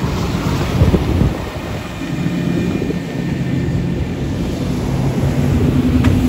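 Motorboat engines running at speed, a steady low drone, with water rushing past and wind buffeting the microphone.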